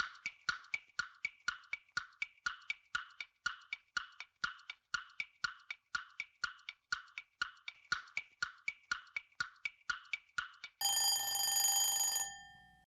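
Countdown timer sound effect: a clock ticking evenly about four times a second, then an alarm ringing for about a second and a half near the end as the answer time runs out.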